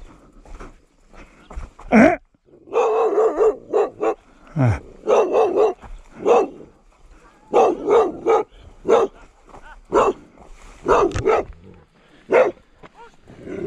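A dog guarding a flock of sheep barking repeatedly in short bouts of one to a few barks, spaced about a second apart. These are warning barks, meant to scare off rather than a sign of attack.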